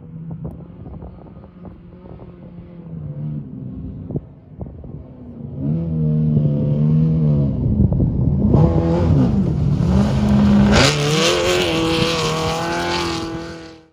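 Off-road race vehicle's engine revving, its pitch rising and falling again and again. It gets loud about six seconds in, then stops abruptly at the end.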